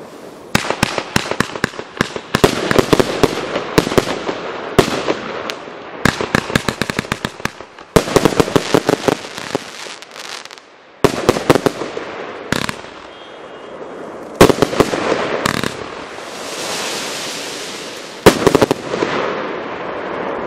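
TROPIC TB408 'Revolution' 150-shot firework battery firing: quick runs of sharp bangs and crackling, with short gaps between the runs. Near the end comes a hissing stretch, then one loud bang.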